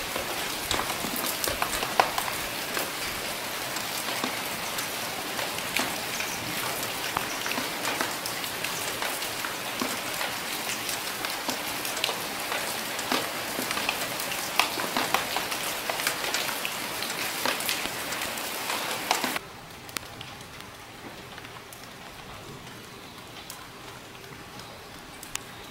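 Steady rain falling, with many sharp drips and taps of individual drops. About three-quarters of the way through it cuts suddenly to a quieter, softer rain.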